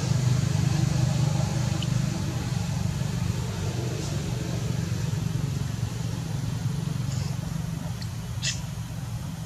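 Steady low engine hum that slowly fades, with a single sharp click near the end.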